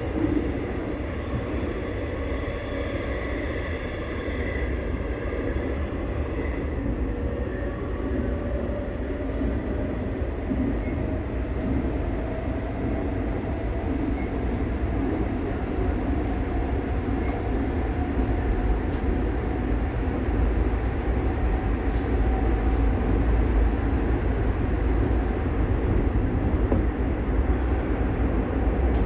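Seoul Subway Line 9 train picking up speed, heard from inside the rear, unpowered car. In the first few seconds the Hyundai Rotem IGBT-VVVF inverter gives several steady tones that fade out, then a motor whine slowly rises in pitch over a growing rumble of wheels on the track.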